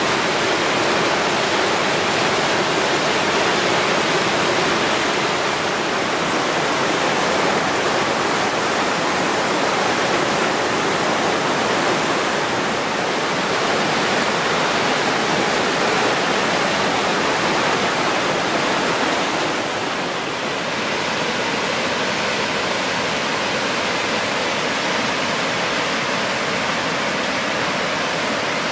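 Whitewater rapids rushing through a rocky river chute: a loud, steady, high-volume white noise of churning water, dipping slightly about twenty seconds in.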